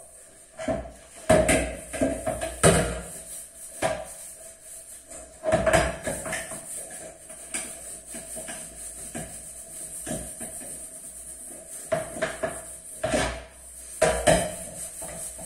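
Dishes, pots and pans clattering and knocking against each other as they are handled, in irregular bursts of sharp clanks with quieter gaps between, over a steady faint tone.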